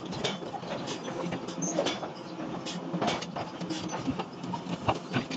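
Forging-shop machinery: many irregular clicks and knocks over a steady low machine hum.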